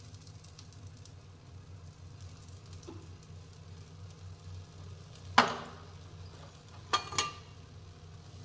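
Besan chila cooking in a frying pan, with a faint steady sizzle. A cooking utensil strikes the pan sharply once, ringing briefly, about five seconds in, then twice more in quick succession about a second and a half later.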